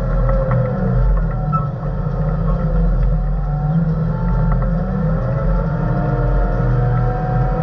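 Diesel engine of an earthmoving machine running steadily under load, heard from inside the cab, with a whine that slides up and down in pitch over the engine's low rumble.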